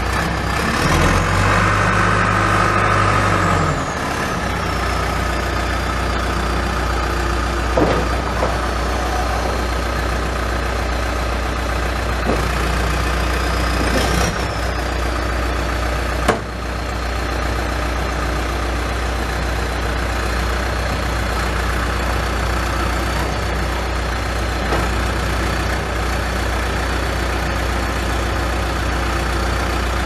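John Deere 310SG backhoe's four-cylinder diesel engine running: revs rise for a few seconds near the start, then it settles to a steady idle. A high whine rises and falls with it, and a few short knocks come through.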